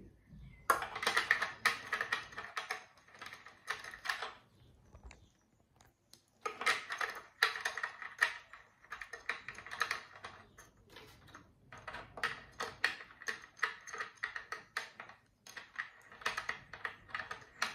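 Rapid plastic clicking and rattling in three long runs, with short pauses between them, as the hub cap of a Xiaomi Mi Smart Standing Fan 2 Lite is screwed by hand onto the fan blade.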